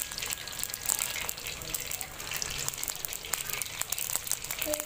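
Beef koftas deep-frying in hot oil in a karahi: steady sizzling with many small crackles and pops from the bubbling oil.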